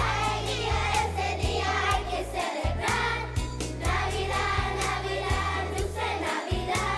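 School choir singing over an accompaniment track with a steady beat and bass line.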